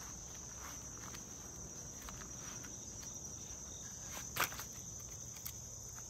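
Steady high-pitched insect drone from the garden, with one sharp snap or click about four seconds in and a few fainter ticks.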